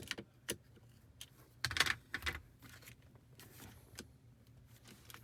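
Hard plastic interior trim around a car's gear shifter being worked loose by hand: scattered sharp clicks and rattles, with the loudest cluster about two seconds in.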